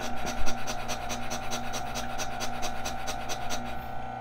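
Turin 64SD single-dose espresso grinder running and grinding coffee beans: a steady motor whine with a rapid, even ticking over it.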